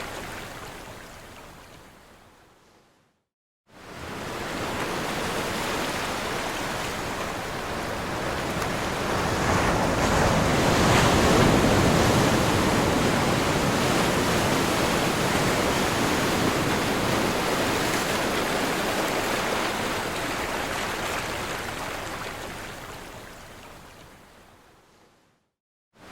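Ocean surf: a dense wash of breaking waves that swells to its loudest about a third of the way in, then fades out near the end. Just after the start, the sound fades to a moment of complete silence and fades back in.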